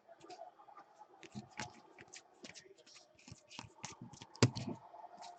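Hands opening a trading-card pack and handling the cards: a run of faint crinkles, clicks and rustles, with one louder tap about four and a half seconds in.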